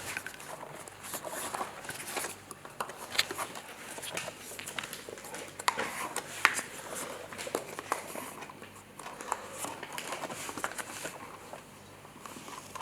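Scattered light clicks and rustling from plastic pieces being handled and pushed into place.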